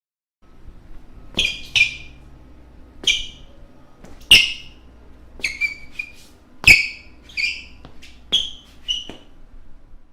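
Basketball shoes squeaking on a gym floor: about a dozen short, sharp, high squeaks at irregular intervals, the loudest about four and six and a half seconds in.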